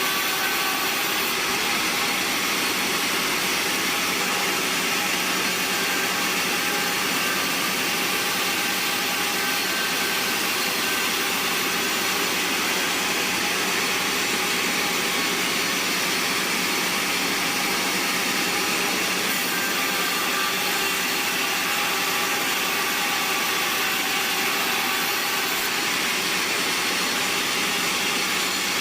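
Band sawmill running steadily as its blade cuts through a bayur log, a constant loud mechanical noise.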